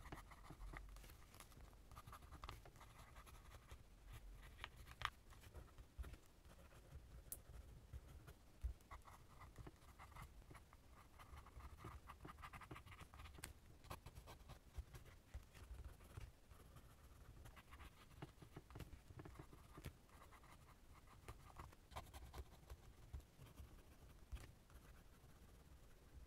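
Faint scratching of a Lamy fountain pen nib on journal paper as cursive is written, coming in uneven runs of strokes with a few sharp ticks.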